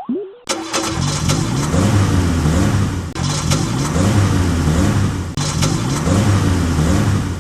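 Motor engine revving up and down over and over, its pitch rising and falling in cycles of about two seconds under a loud hiss; it starts about half a second in.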